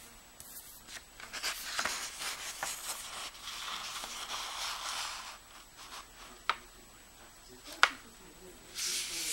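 A sheet of white paper being folded in half on a tabletop, with hands sliding and rubbing over it to press the crease flat. There are two sharp taps about a second and a half apart, in the second half.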